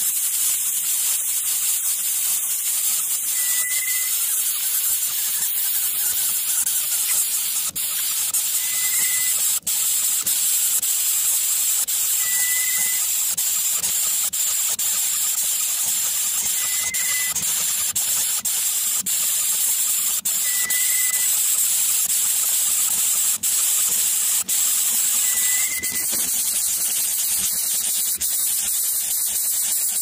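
A steady high hiss, with a short high note repeating about every four to five seconds and a few faint clicks.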